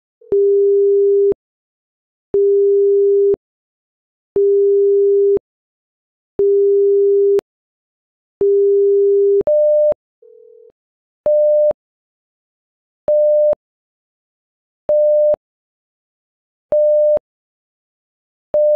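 Electronic alert beeps from a live earthquake-monitor stream, signalling a detected earthquake: five steady low tones about a second long, one every two seconds, then about nine seconds in a switch to higher, shorter beeps repeating about every two seconds.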